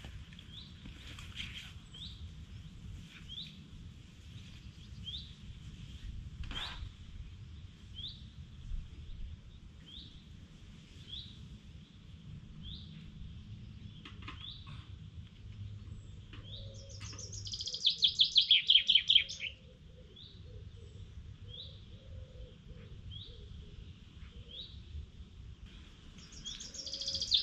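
Songbirds: one bird repeats a short rising chirp about once a second, while another sings a loud, rapid song that falls in pitch, once about two-thirds through and again at the end.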